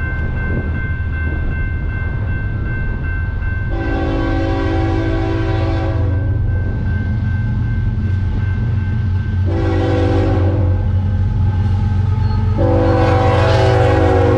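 A Canadian National diesel freight locomotive's air horn sounds three blasts as the train approaches: a long one about four seconds in, a shorter one near ten seconds, and a long final blast whose pitch drops as the locomotive passes. Under the horn runs the low rumble of the locomotives' diesel engines and the rolling train, growing louder as it nears.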